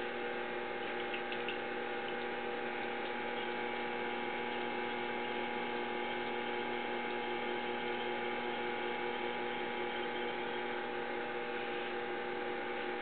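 Electric potter's wheel motor running at a steady speed, a constant hum made of several even tones, while the wheel head spins.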